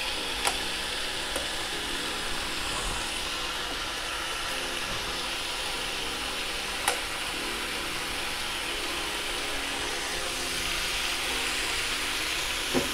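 Raw marinated chicken breasts sizzling on the hot plates of an electric contact grill, a steady hiss, with two sharp clicks of metal tongs against the grill about half a second in and near seven seconds in.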